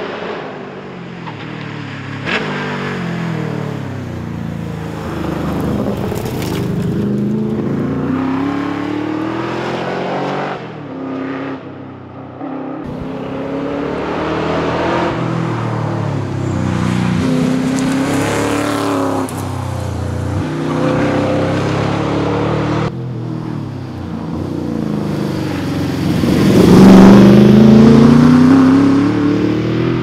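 Holden VH Commodore SS Group 3 V8 rally car accelerating hard past the roadside. The engine note climbs and drops repeatedly as it shifts through the gears, and is loudest in a rising run near the end that cuts off suddenly.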